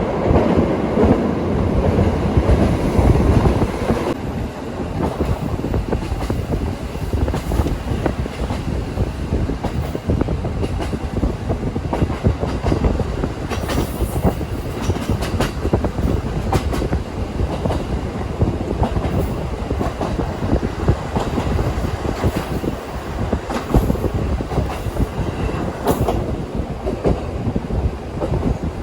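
KiHa 40 diesel railcar running along the line, heard from on board: a steady rumble of wheels and engine with the clickety-clack of the wheels over rail joints. It is louder for the first few seconds, then settles.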